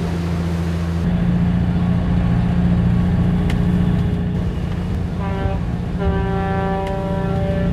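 Boat engine running steadily, its note shifting about a second in; from about five seconds in a ship's horn sounds, a short blast and then a long steady blast.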